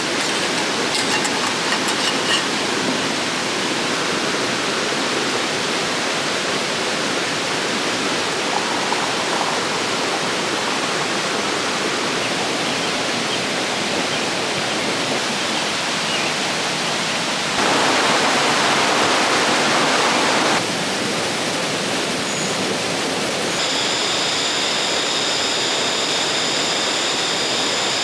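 River water rushing steadily, swelling louder for about three seconds two-thirds of the way through. Near the end a steady high-pitched ringing joins it.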